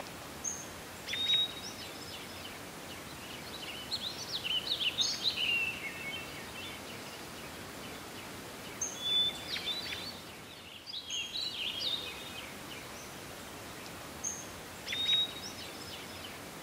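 Birds chirping and calling in short high clusters over a steady hiss of nature ambience. The same calls recur about a second in and again near the end, as in a looped ambience track.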